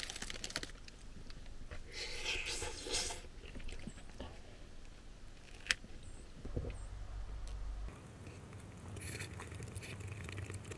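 A person biting and chewing crusty baguette, crunching in short spells, with a single sharp click about halfway through.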